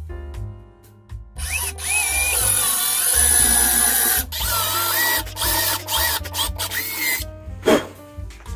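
Power drill boring into birch plywood: one long run of about three seconds, then several short trigger pulls with the motor's whine rising and falling. Background music with a steady bass plays underneath.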